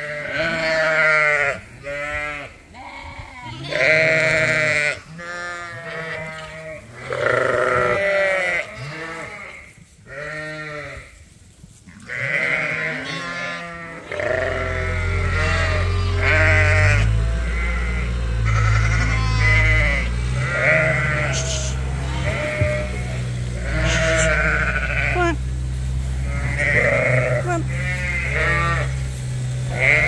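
A flock of Dorset sheep, ewes and lambs together, bleating constantly in many overlapping, wavering calls. About halfway through, a steady low hum comes in underneath the bleating and carries on.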